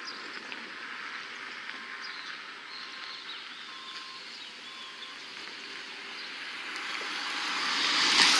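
Steady rolling road noise, with a car approaching and passing close by, swelling to its loudest just before the end.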